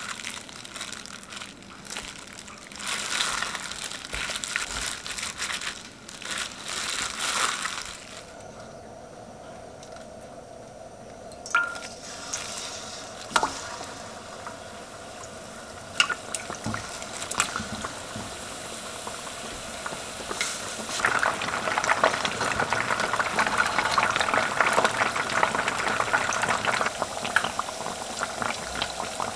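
Battered chicken pieces deep-frying in a pan of hot oil, a dense, steady bubbling sizzle that swells up about two-thirds of the way in and is the loudest sound. Before that come quieter kitchen handling sounds and a few sharp clicks.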